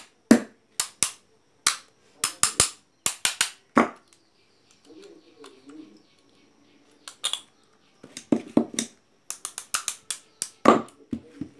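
Quick run of sharp metallic clicks and taps, about three a second, from steel pliers gripping and knocking against the nuts and bolts on the end cover of a small single-phase induction motor as it is reassembled. The clicks stop for a few seconds in the middle and then start again.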